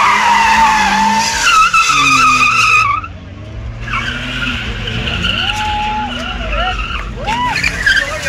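Car tyres squealing as small hatchbacks drift in tight circles, with the engines running underneath. The squeal dips and climbs again about a second in and breaks off about three seconds in. A second long squeal follows from about four to seven seconds.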